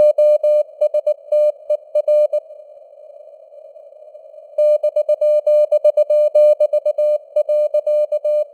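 Morse code at 19 words per minute, sent as a single-pitched beep keyed on and off in dots and dashes over a narrow band of simulated radio hiss. The keying stops for about two seconds a little after two seconds in, leaving only the hiss, then resumes and stops again just before the end.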